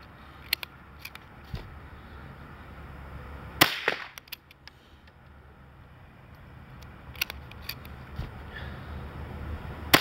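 Two sharp cracks of a single-shot .22 LR Crickett bolt-action rifle firing, about six seconds apart, the second near the end. Between the shots come fainter clicks as the bolt is worked and the next round loaded by hand.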